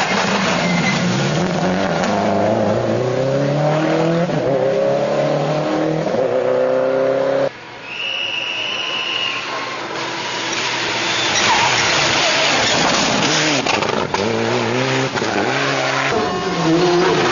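Rally cars at full throttle on a wet tarmac stage, first a Subaru Impreza with its turbocharged flat-four: engines rising in pitch through one gear after another with brief drops at each shift, over tyre noise. The sound cuts abruptly about seven seconds in to another car approaching and revving hard.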